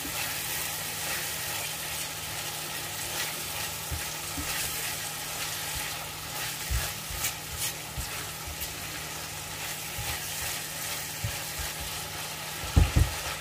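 Spice paste sizzling steadily as it is sautéed in hot oil in a pan, stirred with a utensil that clicks and scrapes against the pan now and then, with a few heavier knocks near the end. The paste is being fried until cooked through and releasing its oil.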